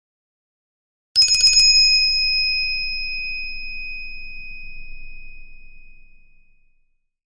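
Nokia E5-00/E7-00 ringtone: a short, rapid rattle of bell strikes, then a single bright bell tone that rings on and slowly fades out over about five seconds.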